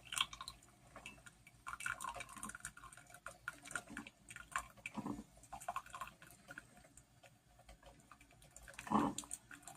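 Mr. Coffee coffee maker faintly trickling and dripping brewed coffee into a cup, with scattered small clicks and taps.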